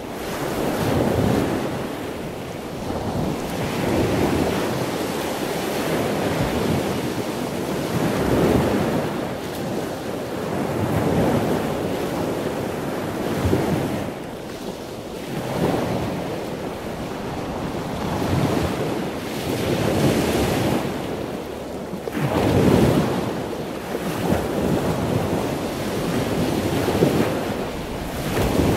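Wind blowing across the microphone over a choppy sea, with waves rushing and splashing against the boat; the noise swells and eases every few seconds.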